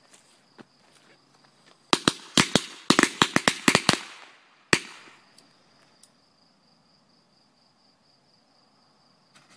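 Fireworks going off in a quick, irregular run of about a dozen sharp bangs over two seconds, followed by one more bang a moment later. Crickets chirr steadily and high in the background.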